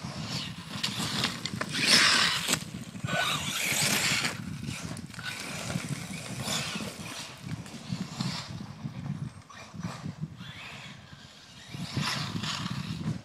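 Radio-controlled HPI Vorza truck on 3.2-inch Badlands monster-truck tyres, driven hard over dirt, its motor and spinning tyres scattering dirt and gravel. The loudest surges come about 2 and 4 seconds in, with another near the end.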